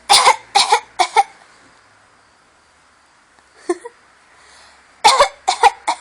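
Laughter that comes out as short, dry coughs: a quick run of three at the start, a faint one in the middle, and another run of about four near the end.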